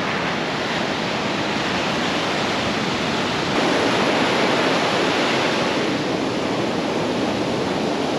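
Ocean surf breaking close by and washing up over the sand in a steady rush, swelling a little about three and a half seconds in.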